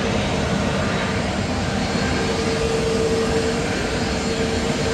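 Airliner engines running: a steady rushing noise with a low hum that grows stronger about halfway through.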